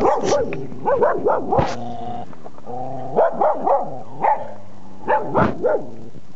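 Dogs barking repeatedly in short runs of three or four barks with brief pauses, and a longer held note about two seconds in.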